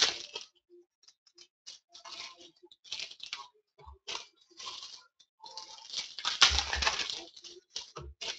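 Baseball card pack wrappers crinkling and tearing as packs are ripped open and the cards handled, in irregular rustling bursts. A few dull knocks from handling come in between, and the loudest stretch is about six and a half seconds in.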